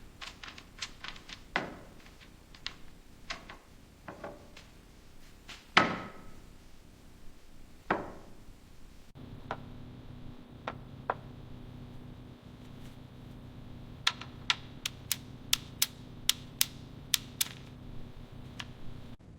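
Hand-tool tapping and knocking on metal, irregular strikes with short ringing and one heavy clank about six seconds in. After a cut, a steady low hum runs under scattered clicks, then a quick run of sharp clicks about two a second near the end.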